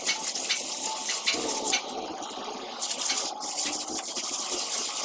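Plasterer's trowel scraping and smoothing wet cement render on a concrete block wall, in repeated short strokes.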